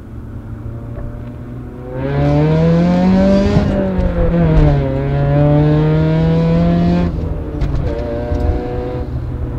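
Car engine heard from inside the cabin while driving. It runs with a low drone, then about two seconds in it pulls harder with a louder rising note that eases and holds steady. Around seven seconds in it drops back to the quieter drone.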